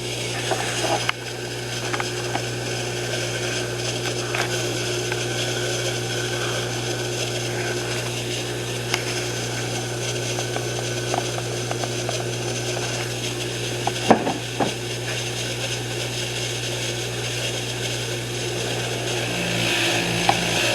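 A power tool runs steadily with a wire wheel, cleaning a metal clamp. A couple of sharp clicks come about two-thirds of the way through.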